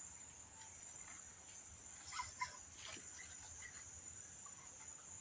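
Steady high-pitched insect buzzing, with a few faint short calls about two seconds in.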